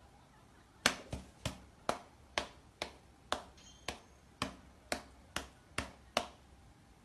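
A series of about a dozen sharp clicks, slightly uneven at roughly two a second, starting about a second in.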